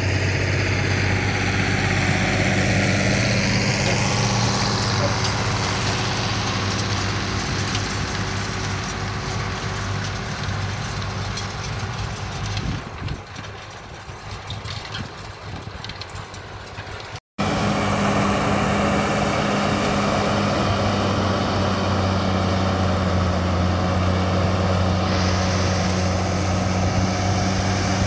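Diesel farm tractor engines working steadily under load in the field, with a pitch that falls over the first few seconds; the sound thins and drops away about two-thirds through, cuts out briefly, then returns loud and steady as a John Deere 7800 pulls a cultivator through the soil.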